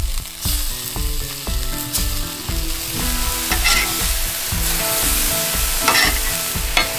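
Venison backstrap sizzling on a hot flat-top griddle, a steady frying hiss, over background music with a steady beat.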